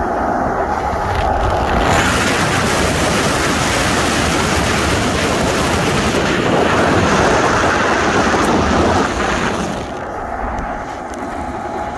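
Seeding air from the fan of a Bourgault air drill rushing out of an opened distribution tower. It makes a ridiculously loud, screaming hiss that starts about two seconds in and stops suddenly about two seconds before the end.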